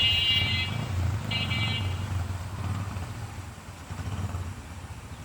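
Vehicle horn sounding twice in short blasts, the second about a second after the first, over a steady low rumble of engines.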